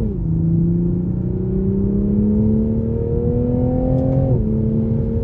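Toyota GR Supra's turbocharged inline-six accelerating, heard from inside the car. The engine note climbs steadily through a gear, drops sharply at an upshift about four seconds in, then starts climbing again.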